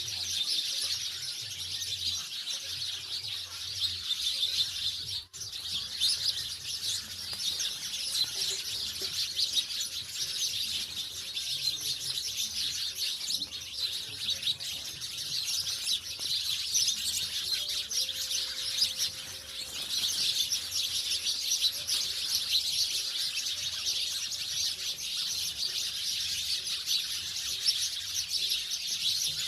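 A flock of house sparrows chirping, a dense unbroken chatter of many overlapping chirps. It cuts out for a moment about five seconds in.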